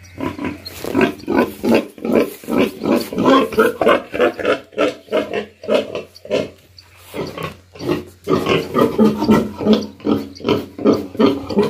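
Domestic pig grunting in a fast, loud string of short grunts, several a second, with a brief lull about six seconds in.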